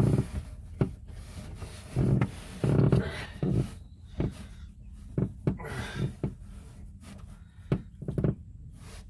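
Pipe being forced and twisted into a rubber Uniseal wetted with muddy water instead of soapy water, rubbing and scraping with irregular knocks; it is a hard, tight fit.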